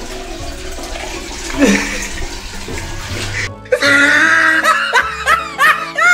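Water splashing and trickling as a plastic mug scoops water from a toilet bowl and pours it into a plastic bucket, under background music. About three and a half seconds in it cuts abruptly to music with a repeated rising-and-falling tone.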